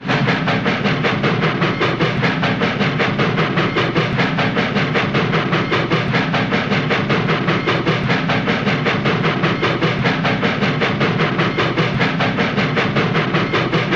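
Cartoon steam-train chugging sound effect: an even, fast chug-chug of puffs, about five a second, holding a steady pace and loudness.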